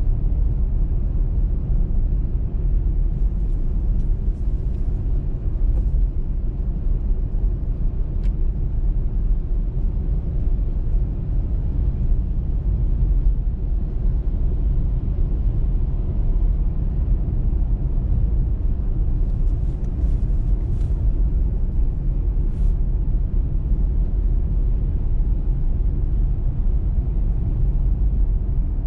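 Steady low rumble of a car driving at speed on a winter motorway: tyre, road and engine noise, with a few faint ticks now and then.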